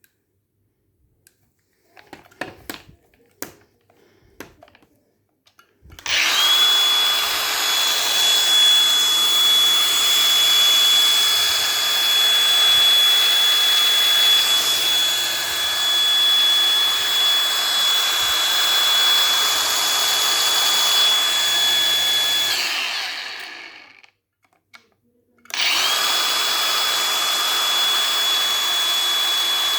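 Craftsman 20-volt cordless angle grinder: a few handling clicks, then the motor switches on, spins up fast to a steady high whine and runs for about sixteen seconds before winding down. After a brief pause it is switched on again and runs steadily.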